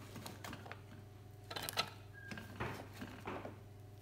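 Chopped vegetable pieces dropped into a metal pressure cooker, knocking against the pot and spoon in a few short clatters, the loudest about a second and a half in.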